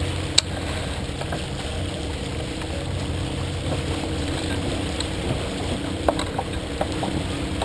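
Sailboat under way: a steady rush of water along the hull mixed with wind on the microphone. There is a sharp click about half a second in and a few lighter clicks near the end.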